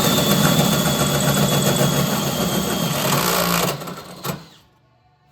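Hole saw in a drill cutting a notch into the metal steering-column drop. The motor runs steadily with a high whine over it, stops a little under four seconds in, and is followed by one short clunk.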